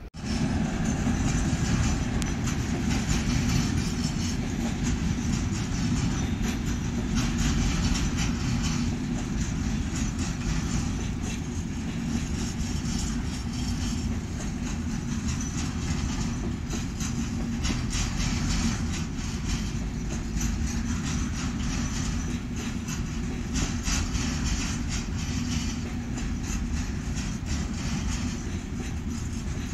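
Freight train rolling past, a steady rumble with the wagons' wheels clattering on the rails.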